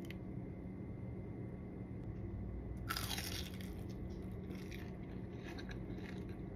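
Crunchy bite into a panko-crusted deep-fried kimbap piece about three seconds in, followed by crunching as it is chewed.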